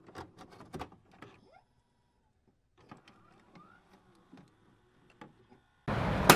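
Faint scattered clicks and short electronic blips, with a silent gap after the first second and a half. Near the end a loud steady rushing noise cuts in suddenly, with a sharp click just after it starts.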